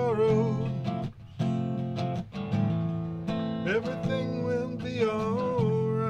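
Steel-string acoustic guitar strummed in a two-chord pattern of A minor and F major, with a man singing long, wavering held notes over it in two phrases.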